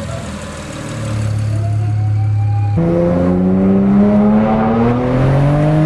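Turbocharged car engine held at steady revs, then accelerating hard with its pitch jumping up and climbing steadily, the revs dropping away sharply near the end.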